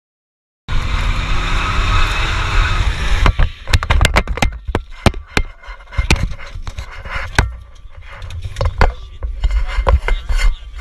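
Inside a truck cab during a drift: engine running hard with tyre noise, then the truck rolls over, a rapid string of crashes and bangs with loose things clattering around the cab, tapering to scattered knocks.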